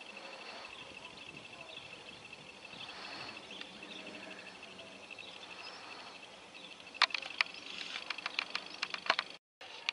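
Outdoor ambience of steady high-pitched chirping with faint small calls. From about seven seconds in comes an irregular string of sharp clicks, the loudest sounds, which cut off in a short dropout just before the end.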